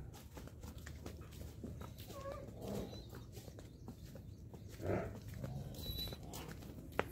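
Water buffalo's hooves stepping on a brick path as it is led, faint and irregular, with two short faint calls about three and five seconds in and one sharp click near the end.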